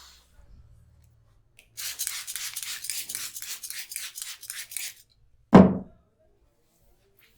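Rapid rubbing strokes over hair and scalp in a head massage, about five a second for some three seconds, rasping and hissy. About half a second after they stop comes a single loud smack, the loudest sound.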